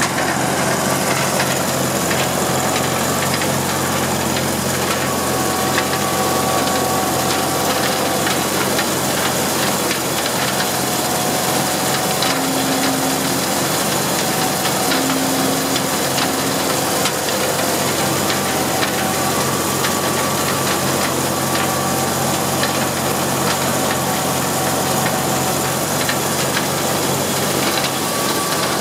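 Minneapolis-Moline corn sheller running steadily, belt-driven by an Allis-Chalmers WD45 tractor. It makes a continuous mechanical din of shelling rolls and blower fan, with ears and cobs rattling through, over the tractor engine working under load.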